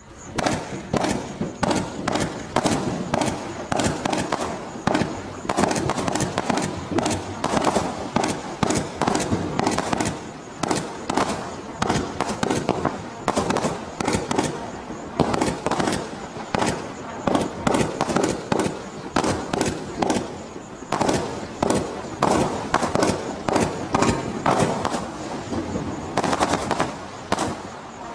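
Stealth Fireworks 'Pearlescent' 49-shot firework cake firing fast: a steady string of loud bangs, one or two a second, from crossette comets breaking in the air, with hardly a pause between shots.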